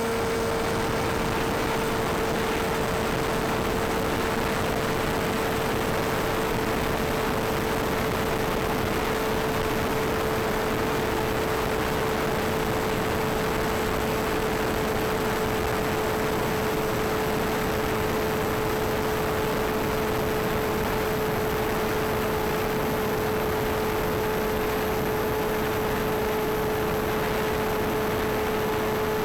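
Bixler RC plane's electric motor and propeller running at a steady high speed: a constant whine with overtones over a steady rushing hiss, after spooling up.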